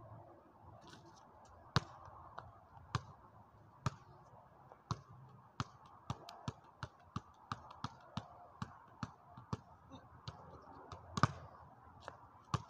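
Basketball bouncing on a paved driveway as it is played with the feet: a few spaced bounces, then an even run of about three a second, and one louder hit near the end.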